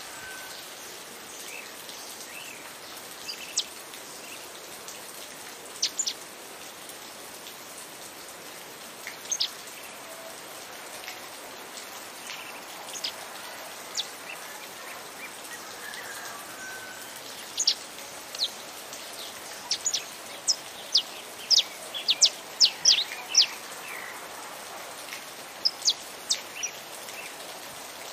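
Saffron finch singing: short, sharp high notes, scattered at first and then coming thick and fast for several seconds past the middle, over a steady hiss of rain.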